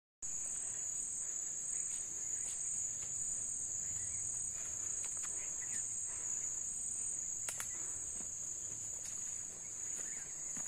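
Steady, high-pitched insect chorus with an unbroken drone, a few faint ticks and chirps beneath it.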